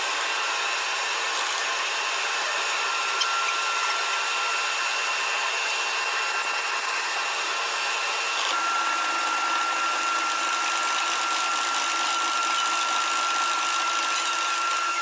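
Milling machine running steadily with a high whine. About eight and a half seconds in the sound shifts: the whine changes pitch and a lower hum joins.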